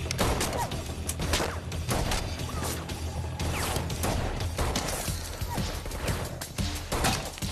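Gunfire from a film shootout: irregular shots and impacts, several a second at times, over a low, steady music score.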